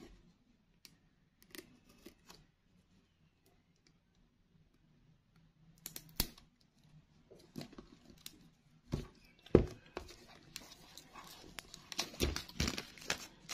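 Clear plastic shrink-wrap on a smartphone box being picked at and torn off by hand, giving sharp crackles and crinkling. It is nearly silent for the first few seconds, with the crackling picking up in the second half.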